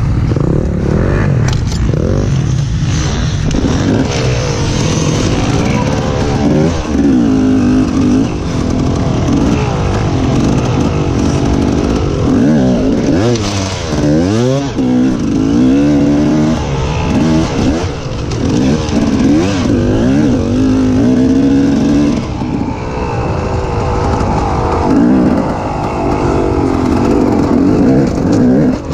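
KTM enduro motorcycle engine revving up and down again and again as the rider works the throttle over obstacles, its pitch rising and falling every second or two.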